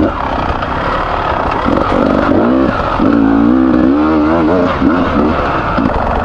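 Freshly rebuilt Beta 300RR two-stroke enduro engine on the move, its pitch rising and falling as the throttle is worked on and off.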